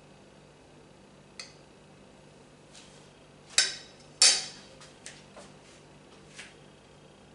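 Metal kitchenware and utensils clattering: a light clink, then two loud sharp clanks less than a second apart with short ringing tails, then a few softer knocks.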